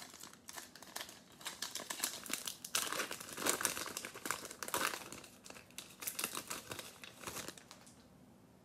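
Foil wrapper of a trading-card pack being torn open and crinkled by hand, with dense crackling that stops near the end.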